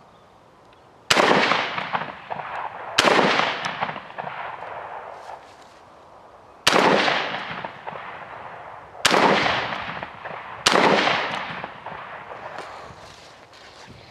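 Five shots from a UTAS XTR-12 semi-automatic 12-gauge shotgun, fired at an uneven pace over about ten seconds, each shot trailing off in a long fading echo.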